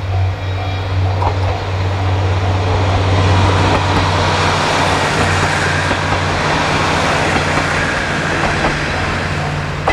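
KiHa 40 series diesel railcar passing: a steady diesel engine hum with wheels clattering on the rails, loudest about three to four seconds in. A level-crossing bell rings in quick repeated dings at the start and again near the end.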